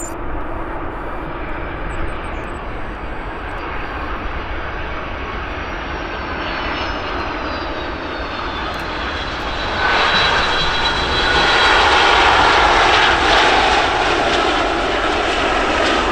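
Jet airliner passing close with engines running, a steady roar with a high whine that slowly falls in pitch, getting louder about ten seconds in.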